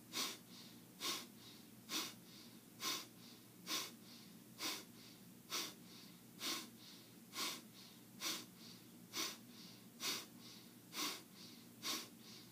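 A person breathing out sharply and forcefully through the nose in a steady run of quick puffs, a little faster than one a second, with soft relaxed in-breaths between them: a kapalabhati-style rapid-exhale breathing exercise.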